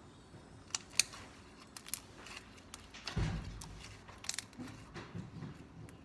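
Sticky homemade slime being handled, giving a few sharp clicks and pops with soft crackling, and a dull thump about three seconds in.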